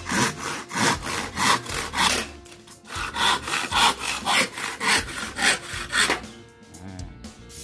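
Hand saw with freshly filed teeth cutting through a small wooden batten: quick back-and-forth sawing strokes, about four a second, with a brief break a little after two seconds in, stopping about six seconds in.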